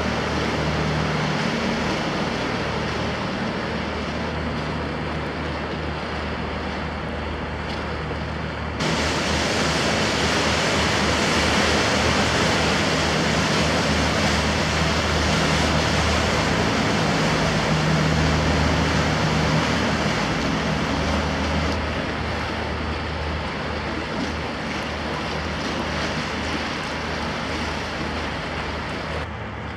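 Motor cruisers passing close on a canal: a steady low engine hum under the rushing wash of their bow waves and wake. The sound jumps louder about nine seconds in and eases again after about twenty-two seconds.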